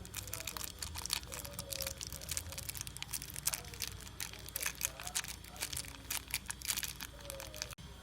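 Dense crinkling and rustling, many quick irregular crackles close together, as something is handled by hand; it cuts off abruptly near the end.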